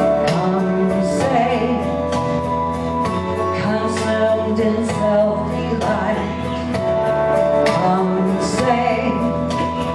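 A woman singing through a microphone over instrumental backing music with a steady beat.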